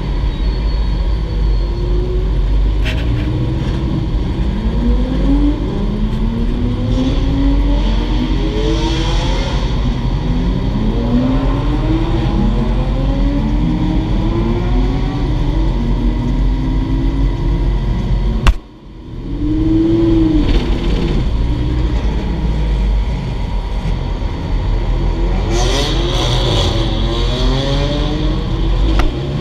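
Race car engine sound heard from inside the cockpit of a track-prepped Lamborghini Huracán with a V10: a steady low rumble under repeated revs that rise in pitch, one after another. About two-thirds of the way through there is a single sharp crack, and the sound briefly drops away before the engine note comes back.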